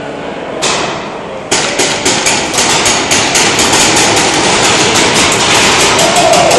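Paintball markers firing: a single shot, then from about a second and a half in, rapid continuous volleys of shots several times a second.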